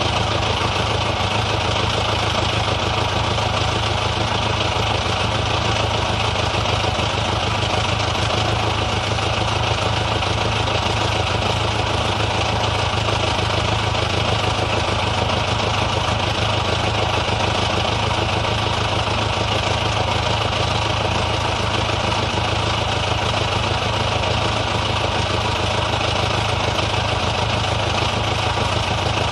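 Old car engine idling steadily.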